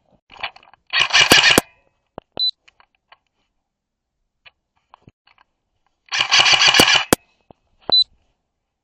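Airsoft rifle firing two short rapid bursts about five seconds apart, each followed by a brief high ping.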